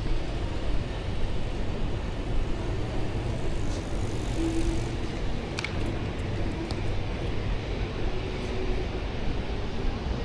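Steady low rumble of city vehicles, with a few faint clicks and a brief high squeak about halfway through.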